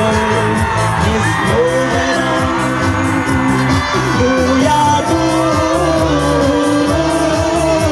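A song sung over musical accompaniment with a steady beat; the melody wavers and slides in pitch.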